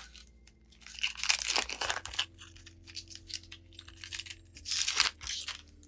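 Foil wrapper of a Pokémon card booster pack crinkling and tearing as it is opened, in two rustling bursts about a second long, one about a second in and one near the end.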